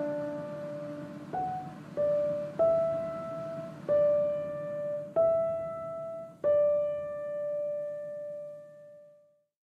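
Background piano music: single notes struck one at a time, each ringing out, with the last note fading away to silence near the end.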